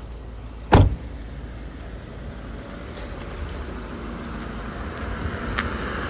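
A single heavy thump about a second in, then a steady low rumble of road traffic that grows louder near the end as a vehicle approaches.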